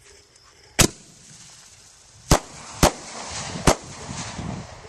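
Fireworks going off: four sharp bangs, the first alone about a second in and three more close together in the second half, with a hiss building behind them.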